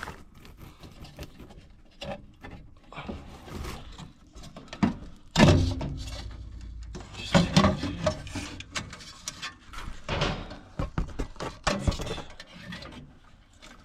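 Scattered clicks, knocks and scrapes of tools, screws and metal parts being handled at a gas furnace's inducer motor as it is unscrewed and removed. The loudest is a heavy clunk about five seconds in, followed by a brief low rumble.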